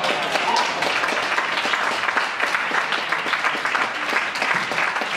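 Small crowd applauding steadily, with a few voices calling out.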